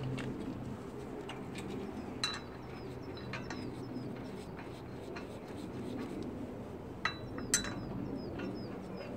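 Sharp metallic clinks of a wrench on a car's wheel bolts, four of them, the loudest near the end, while birds chirp softly in the background.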